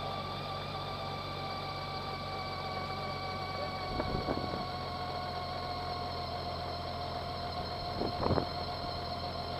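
Honda GoldWing motorcycle running at low speed, a steady engine hum with a steady whine above it, and two brief thumps about four and eight seconds in.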